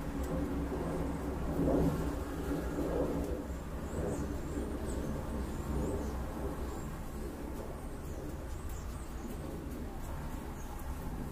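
Outdoor ambience: a steady low rumble of road traffic, with small birds giving short high chirps now and then.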